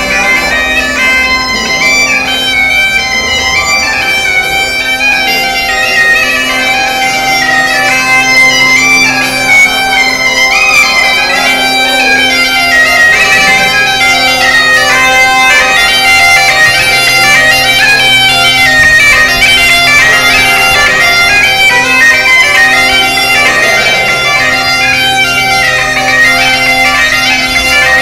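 Galician bagpipe (gaita) played solo: a melody of quick-changing notes on the chanter over a steady, unbroken drone.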